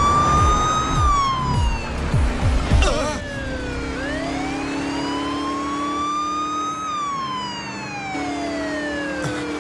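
Police car siren wailing, its pitch sliding slowly down, up and down again, each sweep taking about three seconds, over a steady low vehicle drone.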